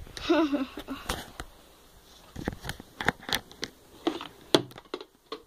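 Handling noise from a phone camera being moved around and gripped: a string of separate knocks and rubs against the microphone.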